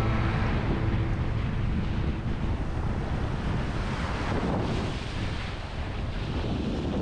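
Small surf breaking and washing up a sandy beach, with wind rumbling on the microphone.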